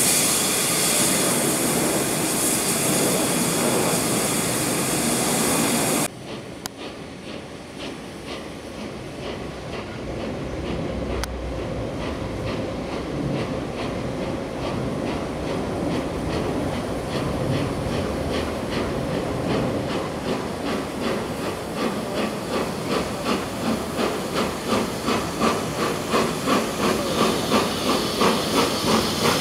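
Peppercorn A1 steam locomotive Tornado, a three-cylinder Pacific: loud, steady steam hissing from the standing engine, which cuts off sharply about six seconds in. Then the locomotive works away and approaches under power, with rhythmic exhaust beats that grow louder and clearer.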